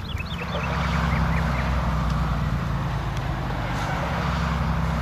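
Motor vehicle engine running steadily, growing louder about half a second in as it draws near, then holding even. A few short high chirps sound at the very start.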